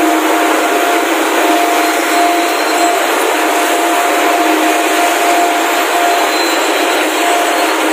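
Rows of yarn spinning frames running together in a mill hall: a loud, steady whir of many spindles and rollers, with a thin steady whine running through it.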